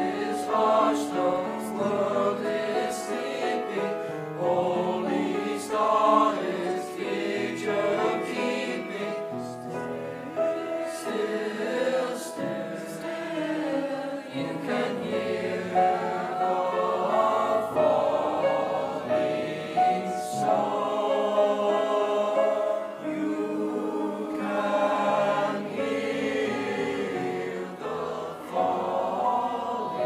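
School choir singing, accompanied on grand piano.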